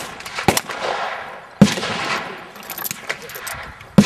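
AK-103 rifle (7.62×39 mm) firing single semi-automatic shots: three loud cracks, the second about a second after the first and the third after a longer pause, each trailing off in echo, with fainter cracks in between.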